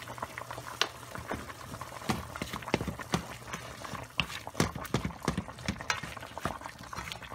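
A wooden spoon stirring ground meat frying in a metal pot: irregular sharp knocks and scrapes of the spoon against the pot, coming faster from about two seconds in, over a low sizzle.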